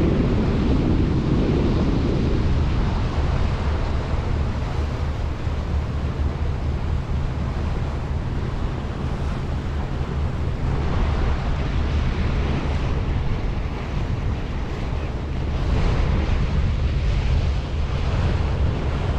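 Wind buffeting the microphone and water rushing along the hull of a Sealine F43 motor cruiser under way, over a steady low engine drone. The rush swells a little twice.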